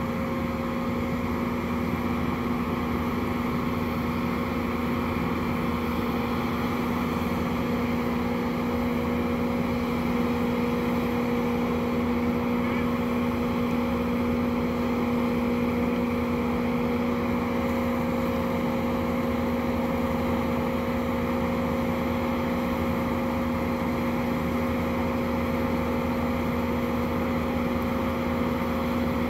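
A tracked Bobcat lift's diesel engine running at a steady speed with a constant hum while it holds and places a bundle of logs with its boom.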